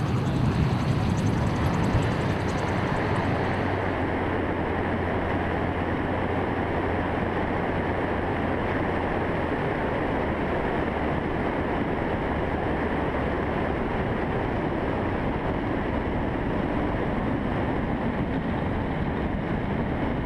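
AutoGyro Eagle gyroplane's engine and pusher propeller running steadily, mixed with wind rush on the microphone as the aircraft rolls along the runway. A few seconds in, the sound turns duller and more even.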